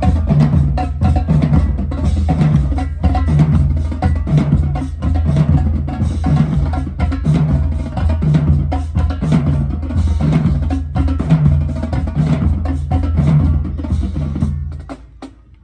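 Marching band drumline playing a cadence: snare and bass drums with rim clicks in a steady beat. The drumming drops away abruptly just before the end.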